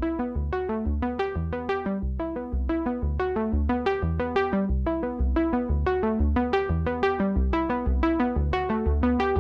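Background music: a synthesized keyboard melody of quick, evenly spaced notes over a steady bass beat.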